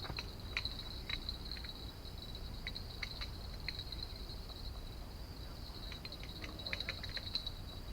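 Insects trilling steadily on one high pitch, with scattered light clicks over it.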